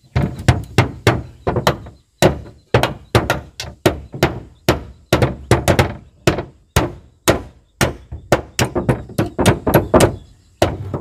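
Hammer blows in an uneven run of about two or three strikes a second: nailing as a wall is put up.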